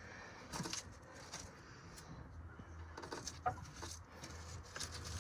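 Faint scattered rustles and clicks, about seven short ones: leaves and debris being cleared by hand out of a pickup truck's empty battery tray.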